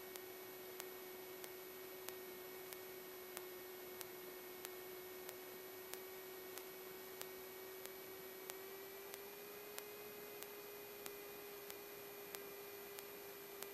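Electrical whine on a Cessna 172's cabled intercom audio feed: one steady tone that steps up slightly in pitch about nine seconds in, with faint regular clicks about one and a half a second.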